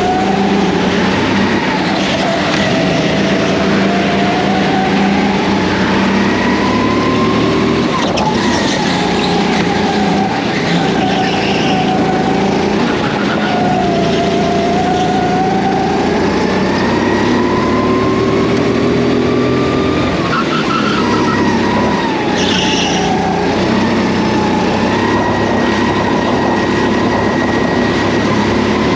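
Go-kart motor driven hard around a track: its pitch climbs steadily over several seconds on each straight and drops sharply when the driver lifts for the next corner, a few times over. There are a couple of short tyre squeals.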